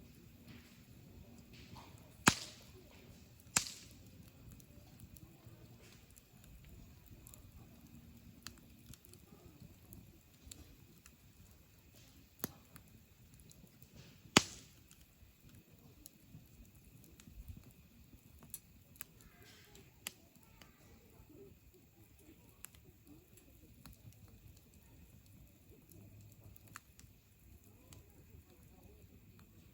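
Wood campfire crackling, with sharp pops. The loudest come about two seconds in, a second after that, and about halfway through, with fainter snaps scattered between.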